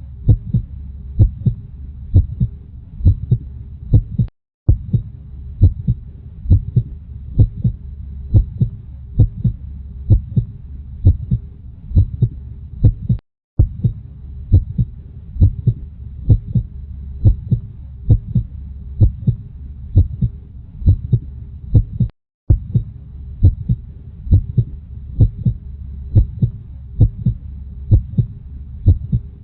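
Heartbeat sound: steady lub-dub double beats, a little over one a second, over a low continuous rumble. The sound cuts out briefly three times, about every nine seconds.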